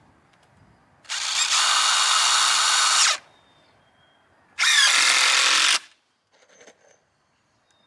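Cordless drill driving a screw into white ash poles to fasten a trellis rail: one steady run of about two seconds, then a shorter run of about a second whose pitch shifts as it starts.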